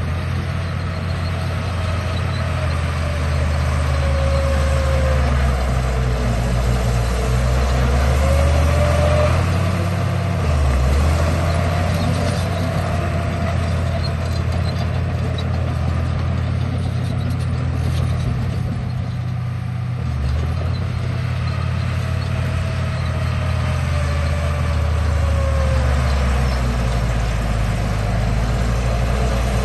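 Radio-controlled model bulldozer working: a steady low hum with a motor whine that rises and falls in pitch several times as it drives and changes speed.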